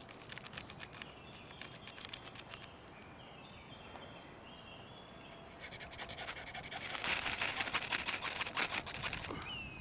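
Victorinox wood saw blade rasping the surface of a horseshoe fungus to fluff it up for catching a spark. Light, scattered scratches at first, then from about six seconds in fast, louder rasping strokes.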